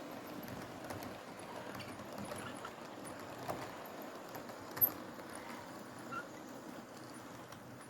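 OO gauge model train running along the track, a faint steady running noise with scattered light clicks of wheels on the rails. One sharper click comes a little before five seconds in.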